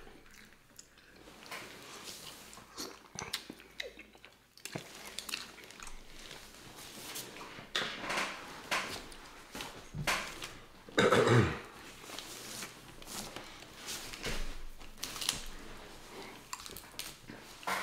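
Close-up eating sounds of snow crab legs: shells cracking and being pulled apart, and the meat chewed and slurped in many short, sharp clicks and smacks. About eleven seconds in comes a louder, short low throat sound that drops in pitch.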